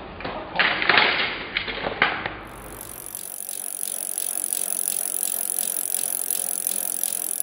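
A trials bike hopping on brick and stone, with sharp knocks of the tyres landing. About two and a half seconds in, this gives way to a bicycle freewheel ticking steadily and fast as the wheel spins.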